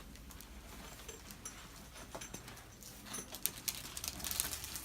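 Faint rustling with scattered light clicks and taps, busier in the second half.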